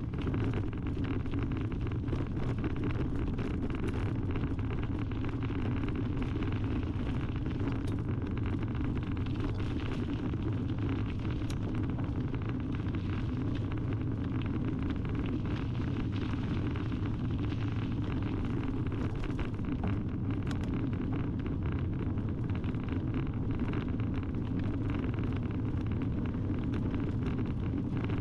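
Wide knobby bicycle tyres rolling over a gravel and grit-covered towpath: a steady low rumble with a scatter of small crackles from stones under the tread.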